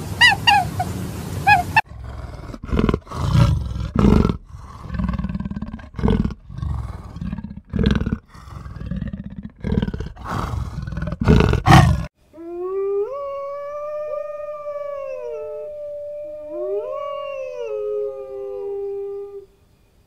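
A goose honking briefly, then cheetahs growling in repeated harsh bursts for about ten seconds, then two wolfdogs howling together in long calls that rise and fall, ending just before the end.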